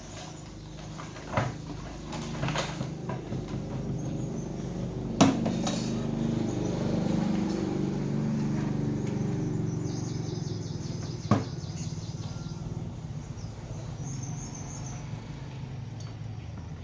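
Several sharp knocks over a steady low hum, the loudest about five seconds in and another near eleven seconds, with faint high chirping in the second half.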